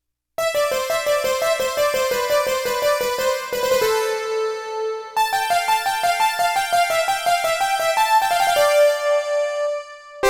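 Roland XPS-30 synthesizer keyboard playing a bright electric-piano-like patch. After about half a second it plays a quick melody of rapidly repeated notes, with a held note midway, then more fast notes.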